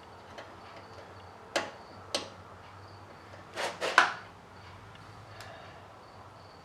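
Sharp knocks and clinks of small metal parts and tools being handled at the door hinge: two single clicks, then a quick cluster of three about two seconds later, the last the loudest.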